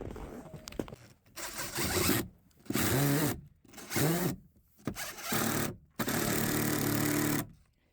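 Cordless drill driving screws into a trough, running in several short bursts that spin up and stop, the last a steadier run of about a second and a half.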